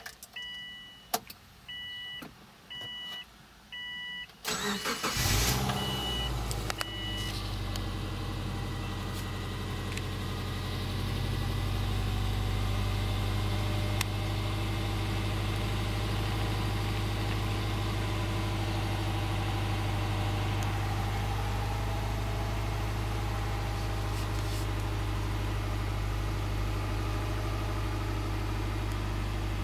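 A 2005 Subaru Forester's dashboard warning chime beeps repeatedly. About five seconds in, the starter cranks briefly and the flat-four engine catches, then idles steadily at a fast idle near 2,000 rpm.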